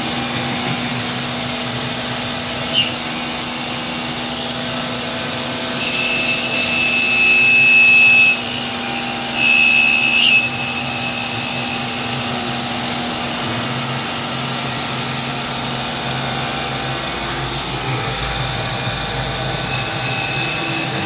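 Homemade CNC milling machine running, its spindle driving an end mill through a clamped plate: a steady mechanical hum, with a louder high-pitched cutting squeal from about six to eight seconds in and again briefly around ten seconds.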